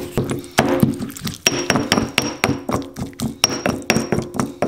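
Stone pestle pounding and grinding a wet caper paste in a heavy stone mortar: rapid knocks, several a second, each with a short ringing clink from the stone.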